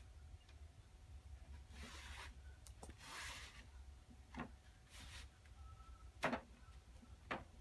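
Faint rustling and rubbing of a canvas seat being slid and pressed onto a director's chair frame, with a few light knocks against the frame, the loudest about six seconds in, over a steady low hum.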